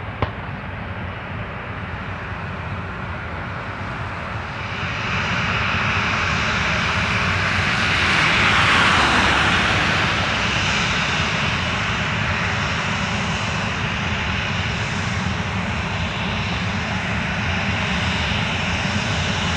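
Boeing 737-800's CFM56 jet engines running at taxi power as the jet taxis and turns past, a steady whine and rumble that swells about four to five seconds in, is loudest near the middle, then holds steady. A short click sounds right at the start.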